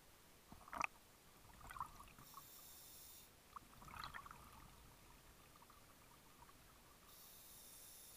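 Faint, muffled underwater sound of a scuba diver breathing. There are a few short gurgles of exhaled bubbles and, twice, about a second of hiss from the regulator on the inhale, roughly five seconds apart.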